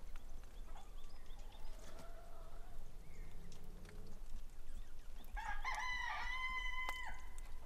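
A rooster crowing once, a single long crow starting about five seconds in, held steady and dropping at the end. Fainter calls come before it.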